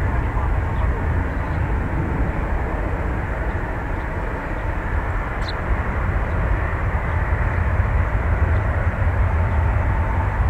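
Jet airliner engines at an airport: a steady low rumble that eases slightly midway and builds again.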